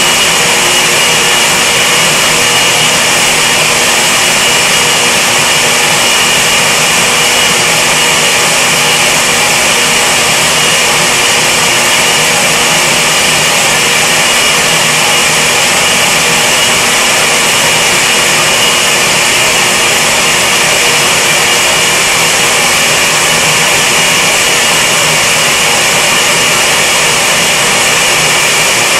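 Countertop blender running steadily with an even whine, grinding a sauce of tomatoes, dried chiles and broth.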